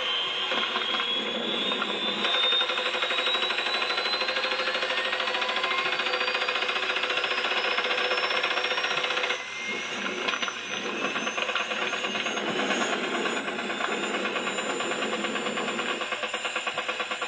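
Huey helicopter running: a fast, steady rotor chop under a high turbine whine that rises in pitch over the first few seconds. The sound dips briefly about nine and a half seconds in, then the chop carries on.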